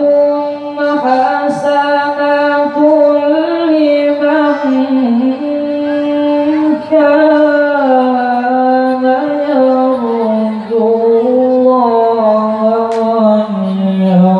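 A male Quran reciter (qari) chanting in the melodic tilawah style into a microphone, holding long notes with ornamented turns. The melody sinks lower over the last few seconds.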